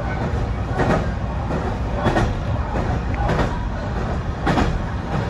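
BEC819 DENCHA battery-electric train running along the line: a steady low rumble from wheels on rail, with clacks over rail joints about once a second, some in quick pairs.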